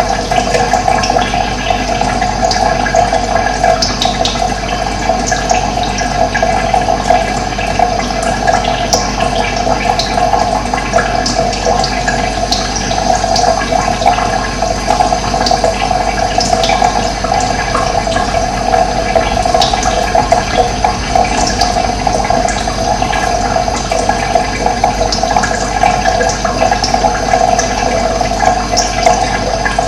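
Running water flowing steadily and continuously, a constant rushing sound.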